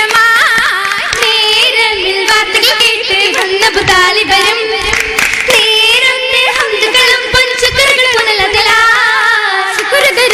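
Oppana song: female voices singing a Mappila melody with wavering ornamented turns, accompanied by sharp, rhythmic hand-clapping.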